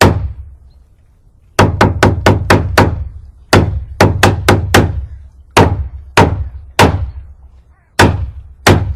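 Hammer striking repeatedly: one blow at the start, then quick runs of sharp knocks, several a second, broken by short pauses, each dying away fast.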